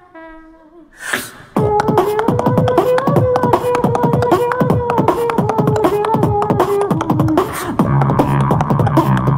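Beatboxing into a hand-cupped microphone. A short hummed tune steps down in pitch. About a second and a half in come fast vocal drum beats under a steady hummed note. Near the end the hummed note gives way to a low buzzing bass drone.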